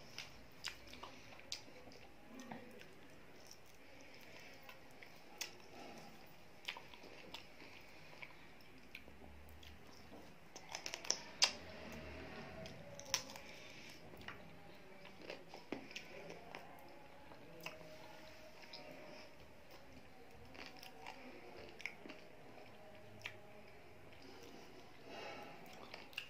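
Close-up chewing of rice with dal and chicken curry eaten by hand: wet mouth sounds with many scattered sharp clicks, busiest and loudest a little before the middle.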